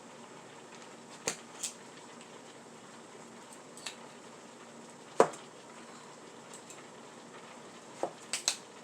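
Scattered knocks and clinks of kitchen utensils and dishes being handled, about seven in all, the loudest about five seconds in and three in quick succession near the end.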